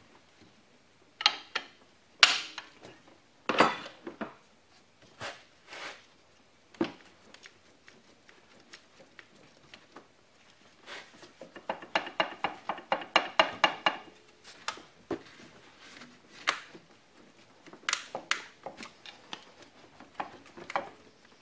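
Metal clinks, knocks and rattles as the belt tensioner assembly on a 3800 V6 is wiggled by hand to work it loose, held back by a corroded aluminum coolant elbow. Near the middle comes a quick run of rattling clicks for a couple of seconds.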